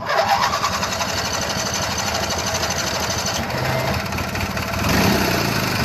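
18-horsepower longtail mud motor running hard under way, a loud steady engine chatter with a rapid even rhythm that starts abruptly and swells slightly near the end.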